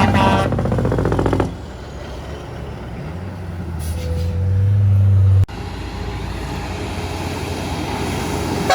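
Heavy trucks passing on a highway. A loud pass cuts off suddenly about a second and a half in. Then a truck's engine drone grows louder and stops abruptly, and steady road noise follows.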